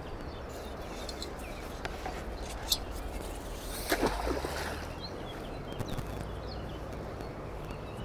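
A metal weed rake on a rope is thrown into the river and lands with a splash about four seconds in, cast out to clear water weed from a fishing spot.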